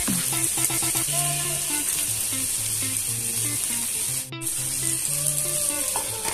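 Potato wedges, onion and neem flowers frying in a pan, a steady sizzle, with background music playing over it.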